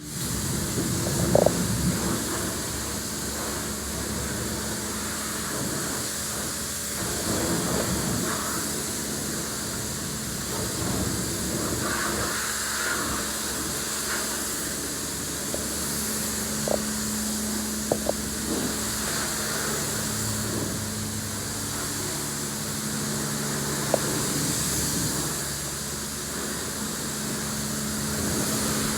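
Car wash equipment running: a steady hiss of spraying water over a constant motor hum, with a few sharp clicks. It starts suddenly at the outset.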